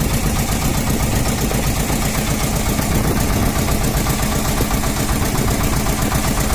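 Boat engine running steadily with a fast, even chugging beat.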